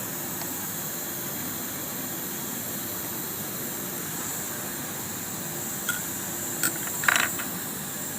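Steady background hiss, with a few short metallic clicks and taps near the end as parts of a Kansai waistband sewing machine are handled.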